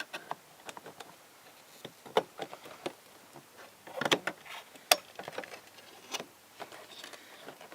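Scattered sharp plastic clicks and knocks, a handful over several seconds, as the inner door handle of a 1999 Chevy Prizm is pulled down and worked loose from the door panel.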